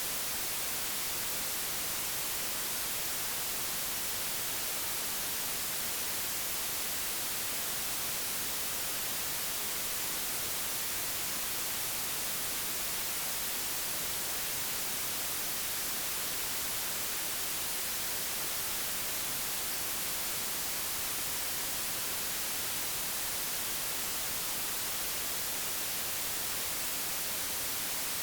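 Digitally generated white noise: a steady, even hiss that never changes.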